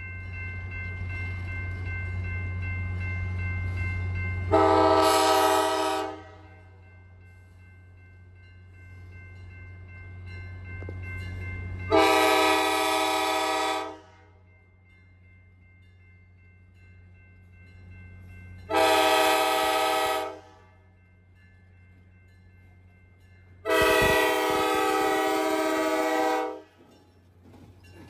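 Diesel locomotive's multi-tone air horn sounding four separate blasts, the last the longest, over the low drone of the approaching engine. The blasts are the warning for the road crossing it is nearing.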